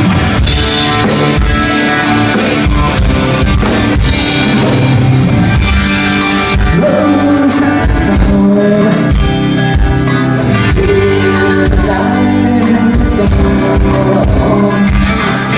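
Rock band playing a song with guitar and drum kit to a steady beat, with a voice singing over it at moments.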